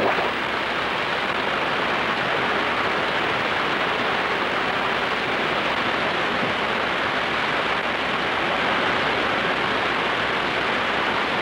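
Steady rain: a continuous even hiss of rainfall.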